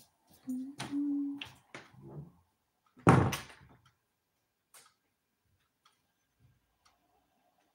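A room door being opened, with one loud thunk about three seconds in.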